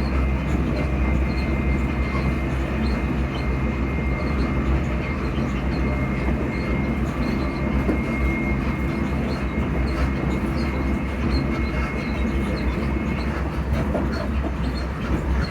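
Class 334 electric multiple unit running at speed: the steady hum of its traction motors, with a thin high whine held at one pitch that fades out near the end, over the low rumble of the moving train.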